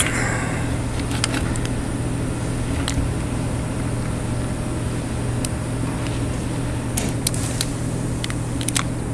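Steady low mechanical hum with a few faint clicks of plastic parts being handled.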